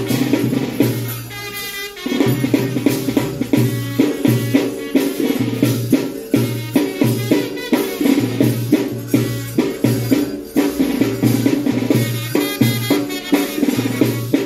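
Drum-led music with a steady beat and rattling percussion over a sustained pitched drone; the drums drop out briefly about a second in, then resume.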